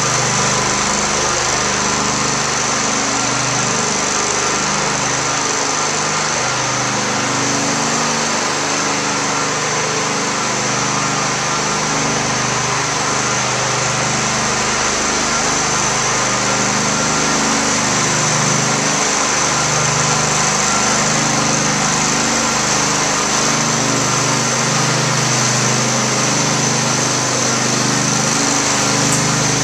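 Phoenix twin-head engine-driven floor burnisher running steadily as it is pushed across vinyl tile: a small-engine hum with a steady high whine on top.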